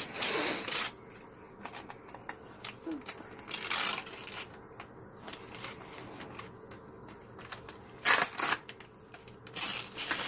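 Paper rustling and crinkling in short bursts as a child's hands unfold and open a paper note, the loudest bursts about eight seconds in and near the end.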